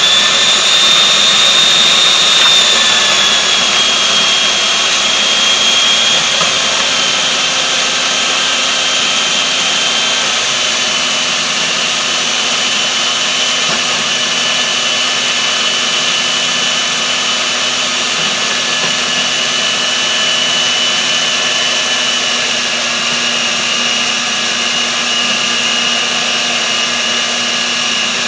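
Countertop food processor motor running steadily at full speed, its blade chopping soap noodles into powder for homemade laundry detergent. A high whine over a grinding hiss sinks a little in pitch over the first ten seconds, then holds.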